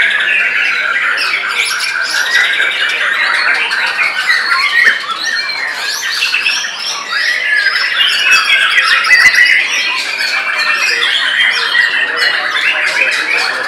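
Caged white-rumped shamas singing loudly at once, an unbroken, overlapping stream of whistled phrases, pitch glides and rapid trills.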